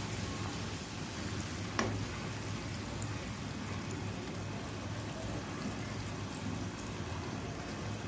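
Small puti fish frying in spiced masala in a pan, with a steady sizzle while they are mixed in, and one sharp tap about two seconds in.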